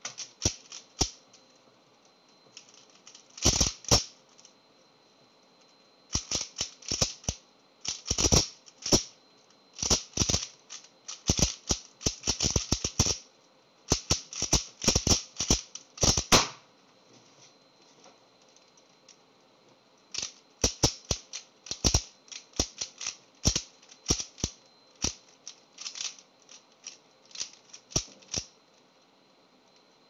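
3x3 speedcube being turned fast by hand: quick runs of sharp plastic clicks and clacks as the layers snap round, in clusters over the first sixteen seconds or so, then a pause of a few seconds and a second spell of clicking turns.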